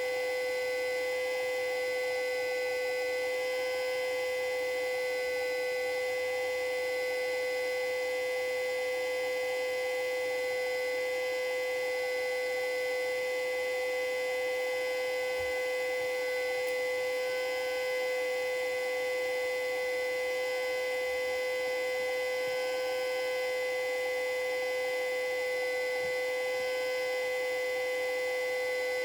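Federal Signal Model 2A warning siren sounding a full-alert signal: one steady tone held at a constant pitch and level, with no rise or fall.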